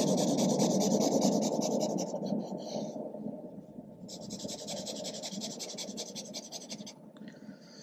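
Felt-tip marker scratching across kraft paper in fast back-and-forth shading strokes. The strokes are loudest in the first two seconds, pause briefly about three seconds in, resume, and die away near the end.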